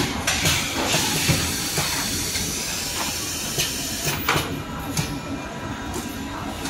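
Automatic round-table high-frequency blister welding and cutting machine running: a steady hiss of air under a series of sharp mechanical clacks, about one every second or so, as the pneumatic press head cycles and the table indexes.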